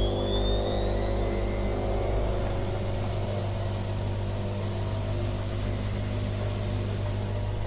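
Old washing machine in its spin cycle. A high motor whine rises in pitch over the first two seconds as the drum speeds up, then holds steady over a low hum.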